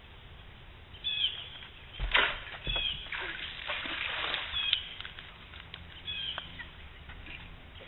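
A bird calling with short, high chirps that glide downward, repeated every second or two. Louder bursts of rustling noise come between about two and four and a half seconds in.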